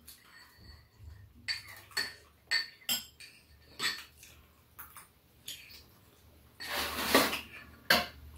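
Metal spoons clinking and scraping against small ceramic rice bowls: a series of separate sharp clinks, with a longer scraping noise about seven seconds in.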